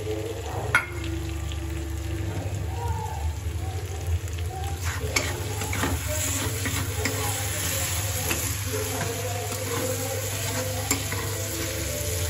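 Chicken and onion masala sizzling and frying in oil in a steel kadai, stirred and scraped with a steel spatula, with a few sharp clinks of the spatula against the pan. A steady low hum runs underneath.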